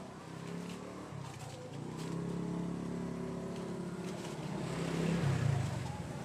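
A vehicle engine running nearby with a steady hum, growing louder to a peak about five seconds in and then easing off.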